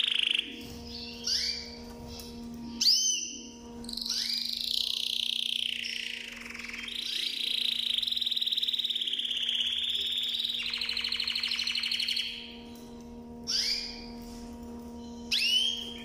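Canary singing: long warbled phrases of whistles and trills, with a fast rolling trill about ten to twelve seconds in, broken by short, sharp rising chirps. A faint steady hum sits underneath.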